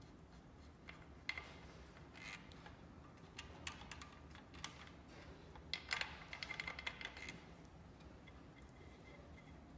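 Small hand ratchet and tools clicking against an engine: scattered metallic clicks, then a quick run of ratchet clicks about six seconds in, which is the loudest part.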